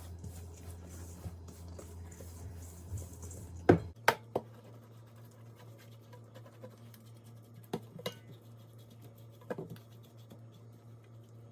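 Kitchen handling sounds: soft scratching and scraping with a few sharp clinks of a utensil against a dish, the loudest cluster about four seconds in and a few single clinks later.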